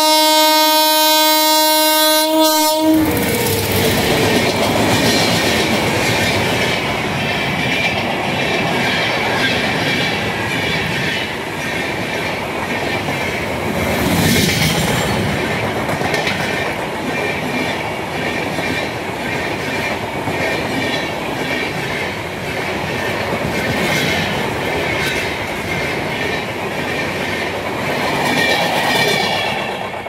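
WAP-7 electric locomotive horn sounding one long note, cutting off about three seconds in. Then the locomotive and its passenger coaches pass close by at speed, the wheels clicking over rail joints in a steady rumble that fades near the end.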